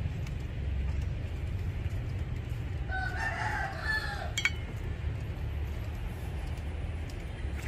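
A rooster crowing once, a call of just over a second starting about three seconds in, over a steady low rumble; a sharp click follows just after the crow.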